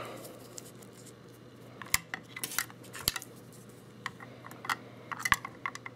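Handling noise from a small electronic speed controller and its wires being fiddled with and set down on a plastic digital pocket scale: scattered small clicks and taps, a few of them sharper.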